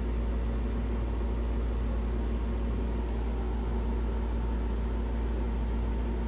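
Steady low hum with an even hiss, unchanging throughout, with no distinct events.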